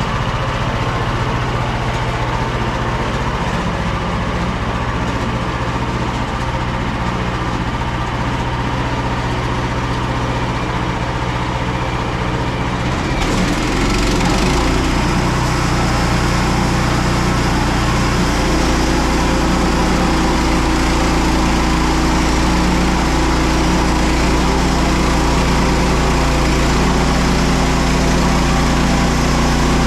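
Small petrol engine of a Frontier OS27 bandsaw mill running steadily. About 13 seconds in it gets louder and brighter and keeps running that way, with another shift in its low tone a few seconds later.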